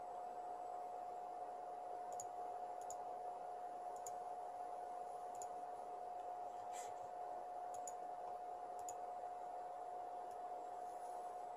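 Computer mouse clicking, about ten faint clicks at irregular intervals, over a steady faint tone and hiss.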